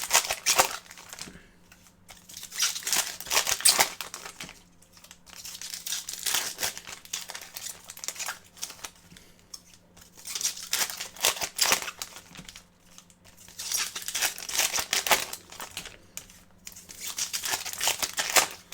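Trading-card pack wrappers being torn open and crinkled by hand, in bursts every few seconds.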